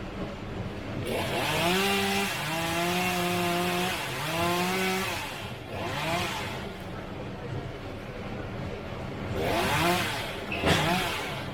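Chainsaw revving up about a second in and running steadily at high speed for several seconds, with the hiss of cutting through wood, then a short rev and two quick revs near the end.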